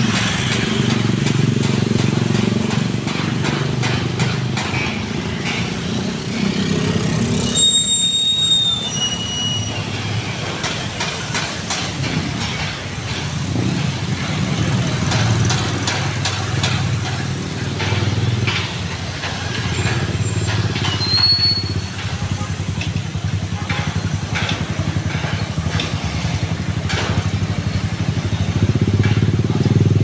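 Busy street traffic: motorcycles, cars and trucks driving past with their engines running, a steady rumble with scattered clicks and knocks. Brief high-pitched tones sound about eight seconds in and again about 21 seconds in.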